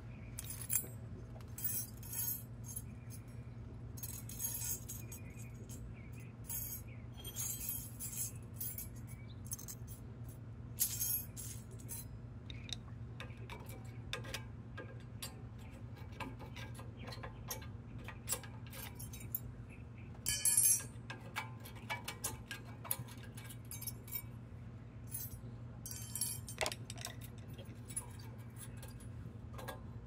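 Light metallic clinks and clicks in scattered clusters as small steel brake parts at a Jeep Patriot's front caliper are handled and knocked together during a pad change. The busiest run of clinks comes about two-thirds of the way through, over a steady low hum.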